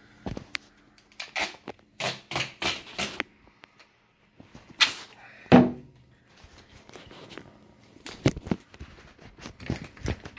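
Duct tape pulled off the roll in a series of short rasping rips and wrapped around bundled Roman candle tubes, with handling bumps and knocks; a louder bump comes about five and a half seconds in.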